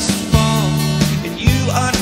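Band music recording playing, with a regular drum beat under sustained bass and chords and a melody line that slides in pitch.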